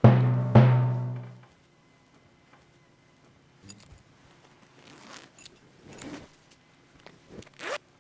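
Two loud, low musical hits about half a second apart, ringing out for about a second and a half. Then a zipper on a black fabric bag is worked open in a few short pulls with rustling and a jingle of its metal pull, the loudest pull near the end.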